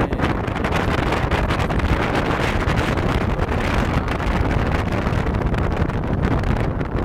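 Wind buffeting the microphone from a vehicle moving along an unpaved dirt road, over the steady rumble of the vehicle and its tyres.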